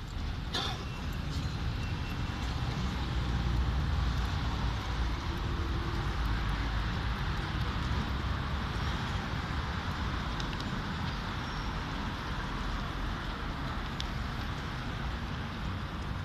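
Steady outdoor street noise with traffic: a low rumble under an even hiss, and a brief click about half a second in.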